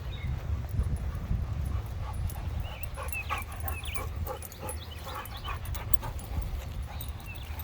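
Dogs whining and yipping in short bursts while playing, most of the calls in the middle of the stretch.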